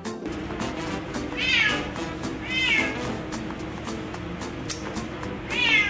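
Wet cat meowing: two loud calls about a second apart, then a third near the end, each sliding down in pitch, over background music.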